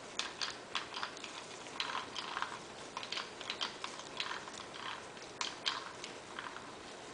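Chuck key turning the scroll inside an empty 4-inch 3-jaw scroll chuck, making a string of irregular metal clicks and ticks.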